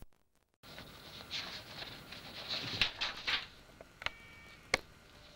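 A sheet of paper rustling and crinkling as it is handled and held up, with a couple of sharp clicks near the end.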